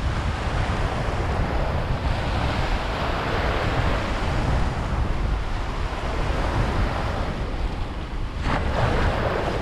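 Wind buffeting the microphone in a steady low rumble over small waves washing and lapping in the shallows.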